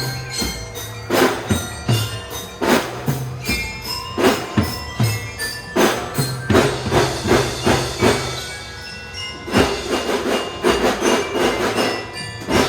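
Children's marching drum band playing: a steady rhythm of drum strikes with a melody on bell-lyra-type tuned bells over it. The drums drop out briefly about nine seconds in, then come back.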